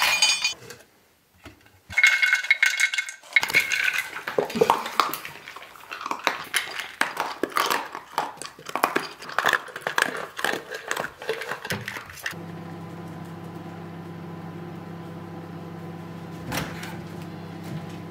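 Dry kibble clattering into and rattling around a stainless steel dog bowl, ringing brightly at first, then many small clinks and clicks as a miniature dachshund eats from it. About twelve seconds in the clatter stops and a steady low hum takes over.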